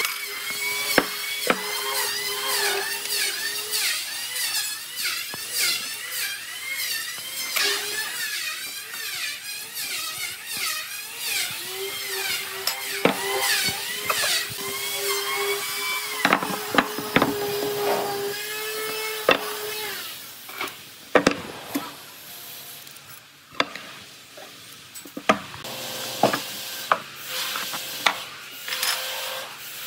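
A power tool working wood, its whine dipping and recovering in pitch again and again as it bites in, with sharp clicks and knocks in between. It eases off for a few seconds after the middle before picking up again.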